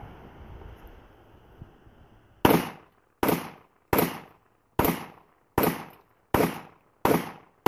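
Colt Commander .45 pistol firing eight shots in a steady string, about three-quarters of a second apart, starting a couple of seconds in, the last right at the end. Before the shots there is low wind noise on the microphone.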